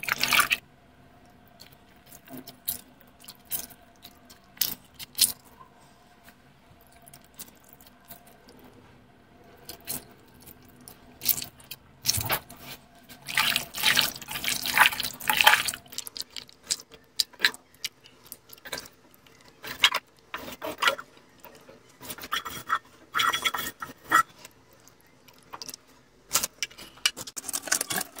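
A hand squishing and mixing raw chicken pieces in a spice marinade in a bowl: wet squelching in irregular bursts, with clicks, loudest about halfway through.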